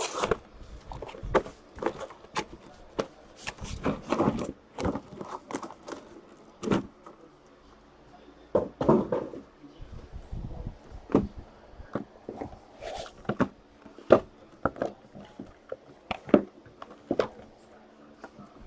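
Cardboard card boxes and packaging being handled on a table: irregular knocks, taps and rustles, with no steady rhythm.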